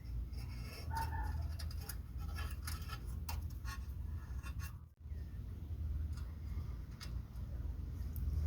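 Light clicks and scrapes of hand tools and fingers working as the new rack-and-pinion bellows is fastened, over a steady low hum. The clicks are busiest in the first half, and the sound breaks off for an instant about halfway through.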